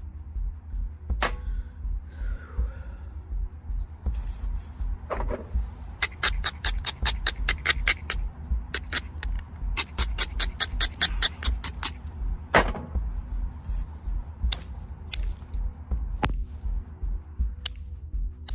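Knapping limestone: a copper billet knocking sharply on the stone several times, and in the middle a fast run of even ticking strokes, typical of the edge being ground to strengthen the platforms before striking.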